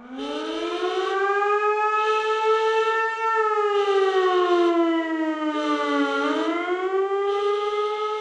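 Civil-defense warning siren wailing. It winds up from a low pitch at the start, slowly sags, dips about six seconds in and winds back up. The sound swells and fades about every second and a half.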